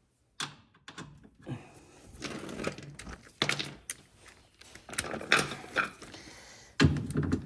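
Clicks and knocks of a tool working on the screws that hold a top-load washer's drive motor, as the motor is being unbolted. A louder mechanical whirring starts near the end.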